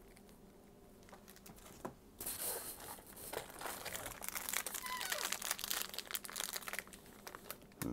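Clear plastic packaging crinkling as items are handled and unwrapped, starting about two seconds in as a dense run of quick crackles that goes on until near the end.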